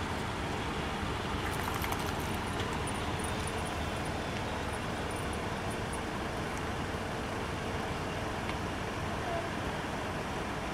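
Steady outdoor background noise of road traffic, with a few faint light clicks in the first half.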